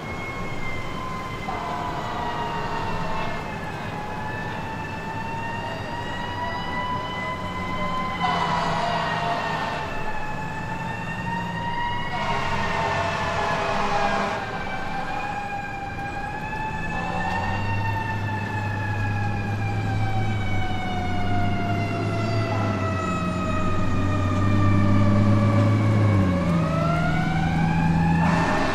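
A siren wailing, its pitch sliding slowly up and down over several seconds at a time, with a deeper dip and rise near the end. A low engine drone joins about two-thirds of the way through.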